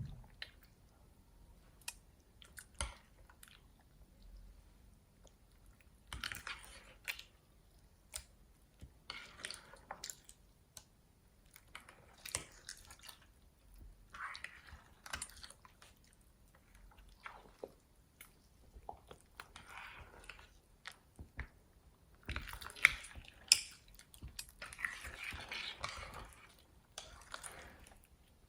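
Slime being worked by hand: irregular sticky squishing with small crackling clicks and pops, growing busier and louder near the end.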